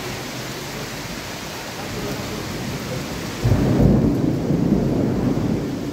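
Heavy downpour hissing steadily; about three and a half seconds in, a sudden loud low rumble of thunder rolls in and carries on.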